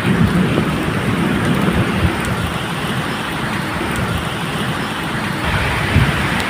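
Steady medium rain falling, a continuous hiss, with a low rumble running underneath that swells slightly near the start and again near the end.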